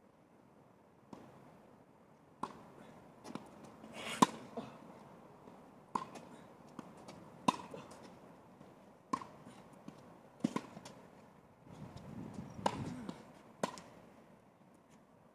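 Tennis rally: racquets striking the ball back and forth, a sharp pop about every one and a half seconds, the loudest about four seconds in.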